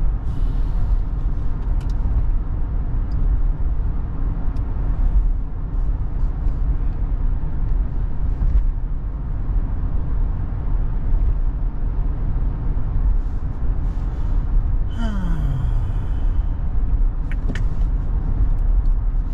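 Steady low road and tyre rumble inside an electric car's cabin while driving on a highway. About fifteen seconds in, a brief tone slides downward in pitch, and a couple of faint ticks follow.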